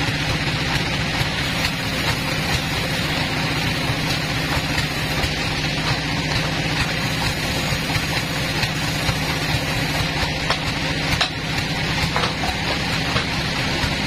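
Band sawmill machinery running steadily at idle with a low, constant hum while the blade is not cutting, with a few light knocks as the log is handled on the carriage.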